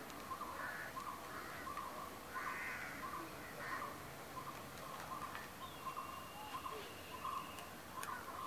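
Crows cawing repeatedly, short harsh calls following one another every half second or so.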